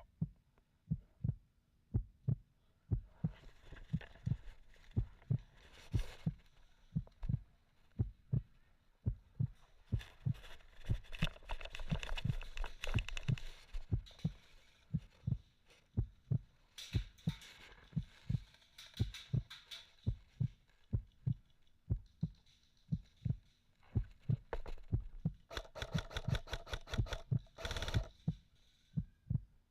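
Steady low thuds about two a second, like footsteps picked up by a body-worn camera, with runs of rapid sharp clicks about halfway through and again near the end.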